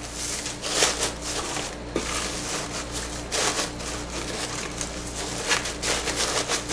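Brown paper shred rustling and crunching in irregular bursts as hands stuff it around items in a cardboard shipping box.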